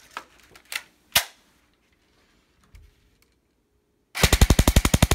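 Airsoft AR rifle fired on full auto at a lump of Play-Doh: near the end, a rapid even burst of shots, more than ten a second. Before it, a few light clicks and one sharp click about a second in.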